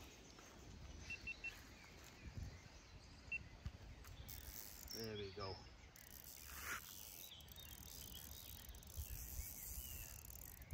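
Quiet outdoor ambience by a lake, with a few faint short high chirps and a brief rising sound about five seconds in.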